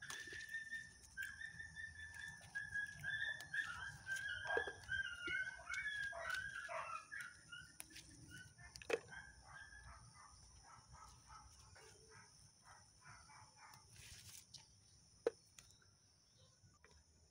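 An animal's high, wavering whine-like call runs on for several seconds, then breaks into a string of short, quick calls that fade toward the end. A few sharp knocks sound over it.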